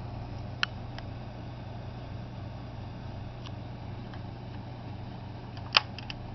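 Sharp clicks of a die-cast model pickup's tailgate being worked by hand: one about half a second in and a louder one near the end, with a few faint ticks, over a steady low hum.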